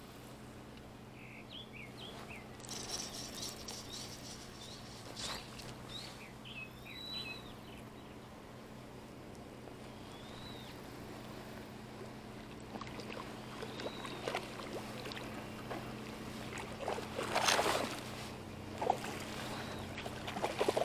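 Small birds chirping now and then over a steady low hum, with soft clicks and rustles of a fly rod and reel being handled. Near the end comes a louder rush of splashing as a hooked carp thrashes in shallow water.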